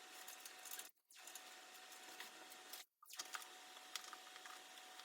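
Near silence: faint room hiss with a thin steady hum and a few faint clicks, cutting out completely twice for a moment.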